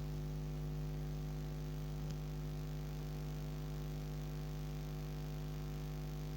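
Steady electrical mains hum, with one faint click about two seconds in.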